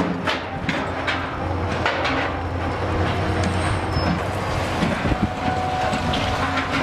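A machine engine running steadily, with scattered knocks and rattles.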